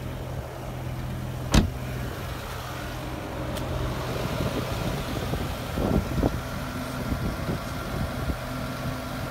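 BMW M5's 5.0-litre V10 idling steadily, with the sharp thump of the car's door being shut about a second and a half in.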